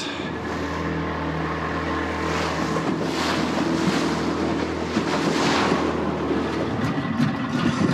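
Small fishing boat's outboard motor running at a steady speed, with wind and rushing water over the hum that swell up twice mid-way.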